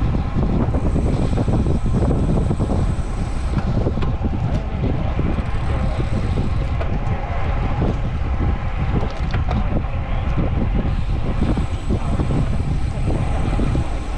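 Wind rushing over the camera microphone of a road bike descending at around 30 km/h, a steady low rumble.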